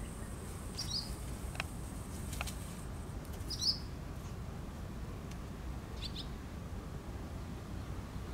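A bird chirping, three short high calls a couple of seconds apart, over steady low background noise with a few faint clicks.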